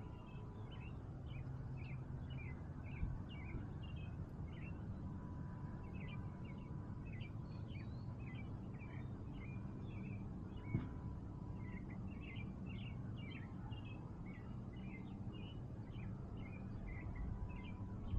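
Small birds chirping in many short, irregular notes over a steady low background rumble, with a faint knock or two.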